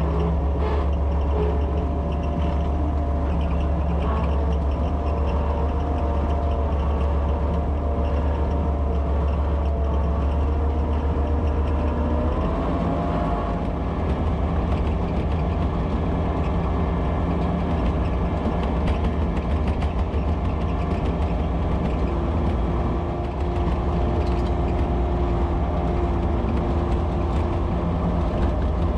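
County tractor's diesel engine running under way, heard from inside the cab. The engine note steps up once, about halfway through, and holds at the higher pitch.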